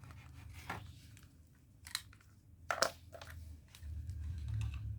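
Clicks and light handling of a small plastic USB mini vacuum cleaner, a sharp click near the middle the loudest, over a low steady hum.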